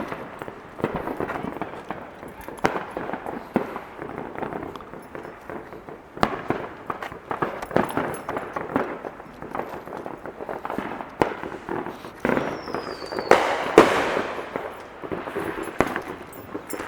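Consumer fireworks going off: a steady run of irregular bangs and crackling reports. About twelve seconds in, a short whistle falls in pitch, followed by the loudest bang.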